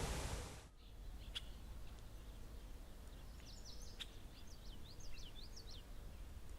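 A loud steady rushing noise cuts off abruptly in the first second. After it comes a quiet outdoor background in which a songbird sings a quick run of high chirps in the middle, and two faint clicks are heard.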